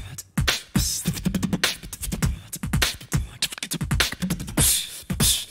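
Beatboxing: mouth-made drum sounds in a steady, quick groove, low kick-like thumps alternating with hissing hi-hat and snare hits, laying down the beat for an a cappella song.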